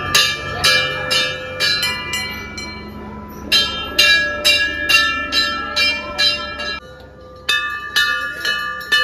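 Hindu temple bells struck over and over, about two strikes a second, each strike ringing on with several tones; more than one bell sounds, and the ringing lulls briefly about three and seven seconds in.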